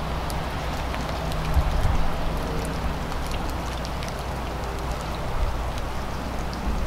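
Water drops pattering: many scattered small ticks over a steady hiss, with a low steady rumble underneath.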